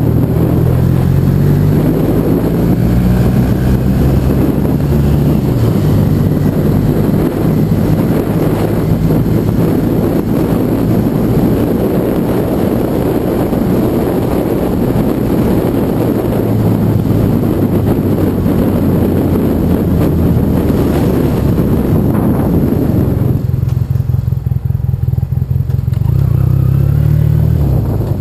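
Yamaha TDM 850 parallel-twin motorcycle engine running under way, heard from on board, its note rising and falling with the throttle over steady wind rush. About 23 seconds in it eases off and the wind drops away, then it picks up again near the end.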